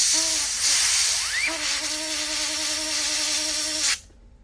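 A compressed-air duster hisses into an HP Pavilion 15t laptop's cooling fan. About a second and a half in, the fan, spun by the air, starts a steady wavering buzz under the hiss, and both stop suddenly about four seconds in. This is the weird noise the laptop fan has been making, which the owner thinks comes from something stuck inside the fan.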